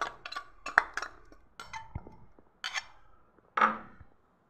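Steel spoon clinking and scraping against a ceramic bowl and the rim of a brass vessel while thick paste is scraped out: a string of short, sharp clinks and taps.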